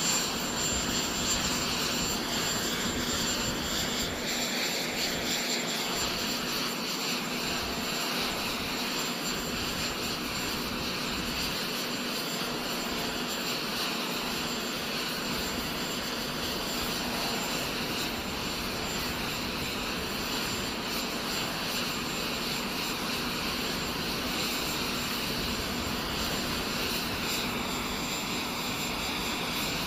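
Jet aircraft turbine running steadily: an even rush of noise with a thin, steady high whine over it.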